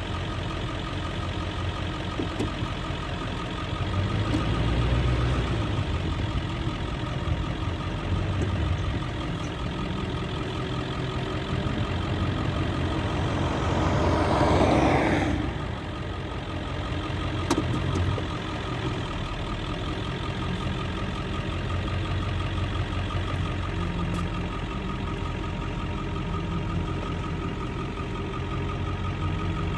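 Heavy farm machinery engine running steadily during the corn silage harvest. A louder rush builds about halfway through and cuts off suddenly, and there are a couple of sharp clicks later.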